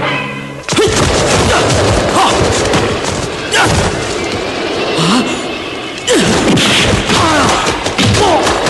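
Loud fight sound effects: a sudden boom about a second in, then continuous crashing, rushing noise with sharp hits and swooping sounds.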